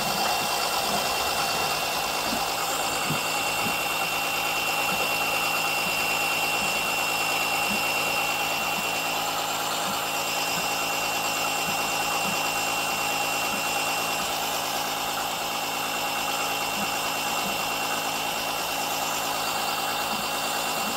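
Small electric oil-suction pump running steadily with a constant high whine, pulling through a hose down the dipstick tube. It is drawing mostly air rather than oil, as leaks in the suction pipe stop it pulling a proper vacuum.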